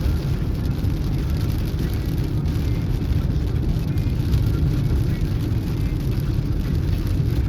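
Steady car road and engine noise heard from inside the cabin while driving, a constant low rumble.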